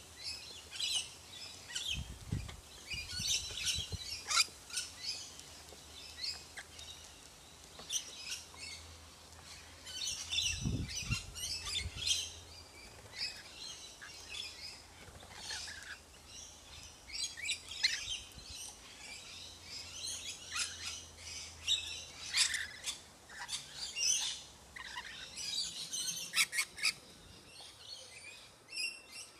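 Rainbow lorikeets chattering with many short, high chirping calls, coming in quick clusters with brief pauses. Two dull low thumps come about two and eleven seconds in.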